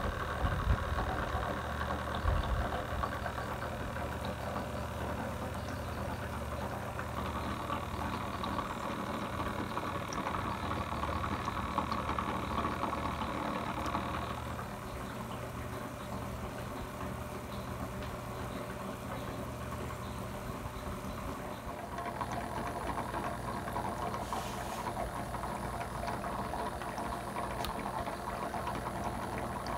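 Steady electric motor hum, such as a water pump or air pump, with water noise under it. A few knocks come in the first seconds.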